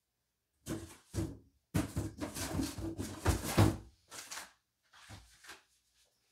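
Shoe packaging being handled: rustling and knocks as a rigid cardboard shoe box and paper card are moved, picked up and set down. It comes as a string of bursts over about four seconds, then a few faint knocks.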